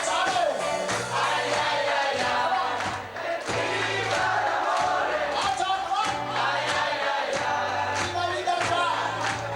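A pop-rock band song: several voices singing together over a steady drum beat and a bass line.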